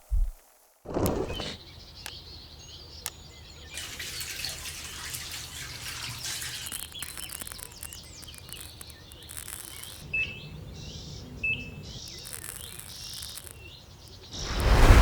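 Birds chirping and twittering over a steady background hiss, starting suddenly about a second in, with a louder swell near the end.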